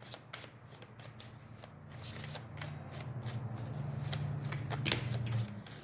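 Tarot cards being shuffled by hand, a run of quick papery flicks and snaps as the deck is worked to draw clarifying cards. A low hum sits underneath from about two seconds in and stops shortly before the end.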